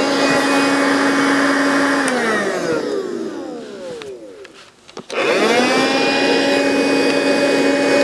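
Cordless handheld vacuum cleaner running with a steady motor whine. About two seconds in it is switched off and the motor winds down, its pitch falling away. About five seconds in it is switched back on and spins up quickly to the same steady whine.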